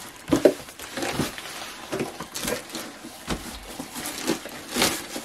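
A crushed cardboard box being worked open by hand: irregular scraping, tearing and rustling of cardboard and plastic packing, with a few sharper scrapes about half a second and a second in.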